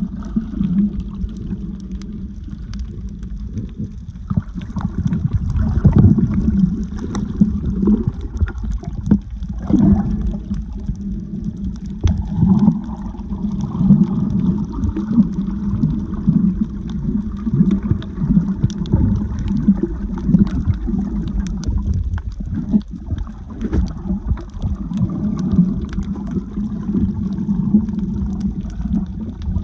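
Water sloshing and gurgling, heavily muffled as it sounds underwater, with scattered small clicks.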